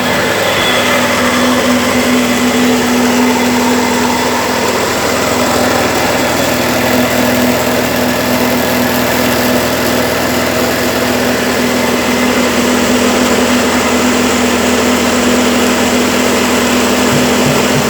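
Honda GX160 single-cylinder four-stroke petrol engine running steadily, powering a double-roll soybean dehulling machine.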